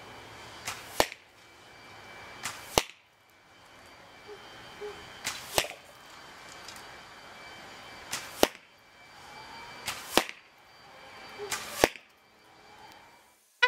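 Six arrows shot from a homemade crepe myrtle longbow hitting a target, each one a sharp hard smack. Each hit comes about a third of a second after a fainter crack of the shot itself.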